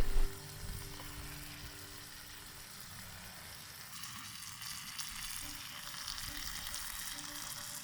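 A steady hiss, fairly quiet and even, with no distinct events.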